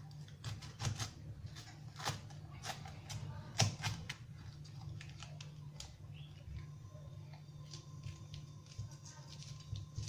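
Kitchen knife slicing long green peppers on a wooden cutting board: irregular crisp cuts and knocks of the blade against the board, most of them in the first four seconds, over a steady low hum.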